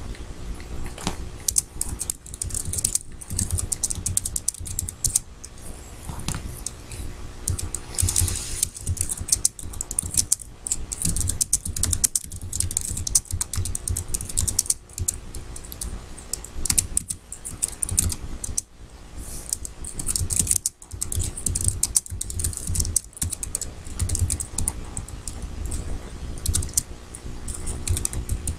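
Typing on a computer keyboard: quick runs of key clicks broken by a few brief pauses.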